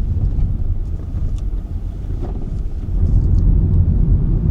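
Car driving, heard from inside: a steady low rumble of road and engine noise that gets louder about three seconds in.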